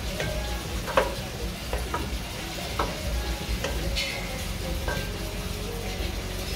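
Wooden spoon stirring curry in a stainless steel pan, scraping and knocking against the metal every second or so over a steady sizzle, the sharpest knock about a second in.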